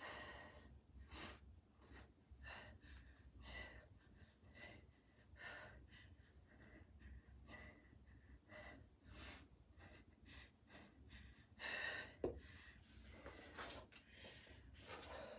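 Faint, effortful breathing of a person working through a set of one-arm kettlebell rows: a breath about once a second, with a louder breath near the end.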